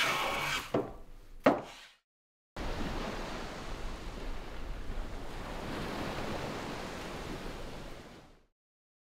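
Waves breaking and washing onto a sandy beach: a steady surf noise that fades out near the end. Before it, for the first two seconds, a wooden board being planed, with two sharp strokes, then a brief silence.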